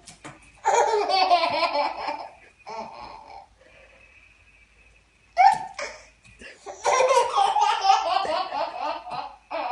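A baby belly-laughing in two long bouts, one about a second in and one near the end, with shorter laughs between them.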